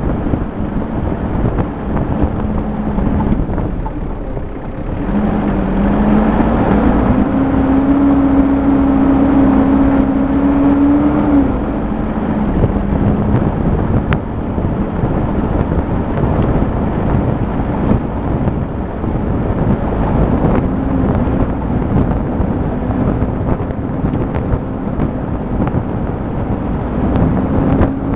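A vehicle's engine runs on a rough dirt track, heard from inside the cabin. Its note rises about six seconds in, holds, drops back a few seconds later and climbs again near the end. Frequent knocks and rattles from the bumpy ground run through it.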